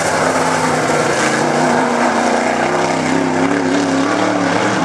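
Dirt-track modified race car's V8 engine running hard at speed around the track, loud and steady, its pitch dipping and rising about three seconds in.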